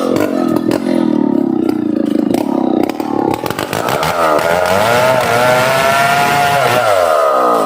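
Chainsaw cutting into a large ironwood tree, its engine pitch dropping about a second in, staying low, rising again around four seconds in and falling near the end.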